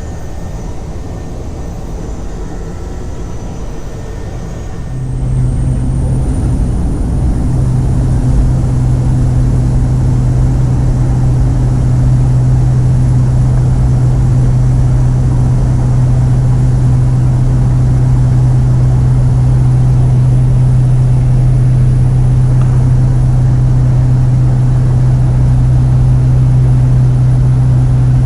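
Steady drone of a float plane's propeller engine. It grows louder about five seconds in, then holds a steady low hum with a faint high whine above it.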